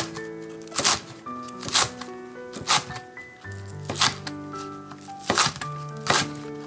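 Kitchen knife slicing through green onions onto a cutting board: a crisp cut about once a second, at slightly uneven spacing. Background music with held notes plays throughout.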